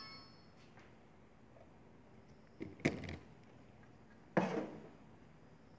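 Two short knocks from objects being handled on a bench, a quick double hit about three seconds in and a single one about a second and a half later, over a quiet background. The last notes of a ringtone fade out at the very start.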